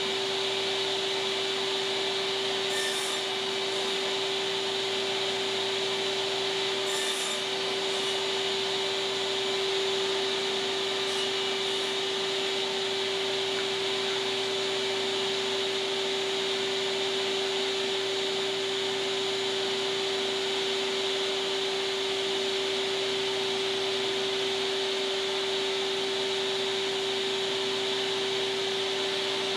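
Table saw running steadily, a constant hum and whir that holds the same level throughout, with its blade set about a quarter inch high for cutting shallow dados.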